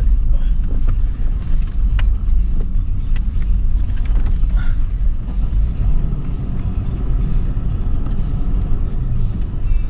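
A 2013 Toyota 4Runner's 4.0-litre V6 under way on sand dunes: a steady low rumble of engine and drivetrain, with scattered light clicks and knocks.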